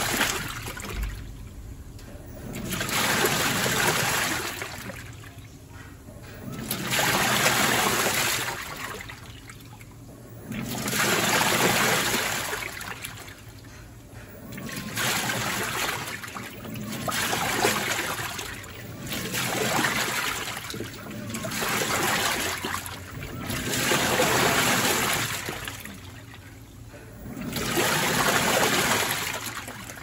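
Panasonic NA-FD10X1HRM top-load washing machine in its wash cycle: the pulsator churns water and clothes in surges of swishing and sloshing about every four seconds, with quieter pauses between as it stops and turns the other way.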